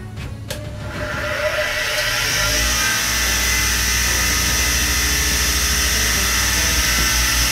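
A power tool starts up about a second in and runs steadily with a high whine.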